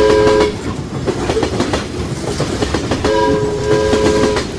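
Train sound effect: a train whistle sounds a chord of several notes, briefly at the start and again about three seconds in, over a steady clatter of wheels on rail joints. It cuts off abruptly at the end.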